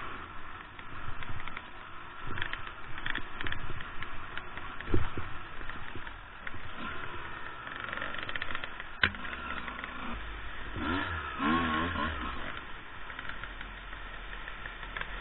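Two-stroke enduro motorcycle engine running on a rough trail, its pitch rising and falling with the throttle. There is a sharp knock about nine seconds in and a quick rev a couple of seconds later.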